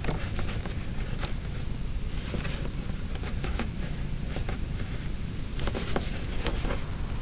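Wind buffeting the microphone in a steady low rumble, with scattered small clicks and a brief rustle about two seconds in from handling the model plane's battery packs.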